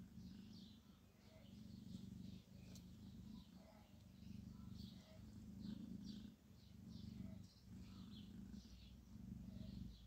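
A cat purring: a soft low hum that swells and fades with each breath, about every second or two. Faint short high chirps sound on and off over it.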